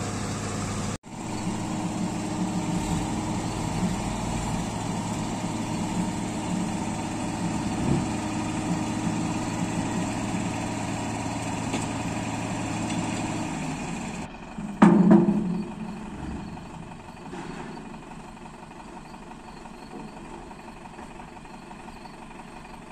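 Engine running steadily at idle, with a brief gap about a second in. After about fourteen seconds the engine drops away, and a short, loud sound comes about a second later. A quieter steady background follows.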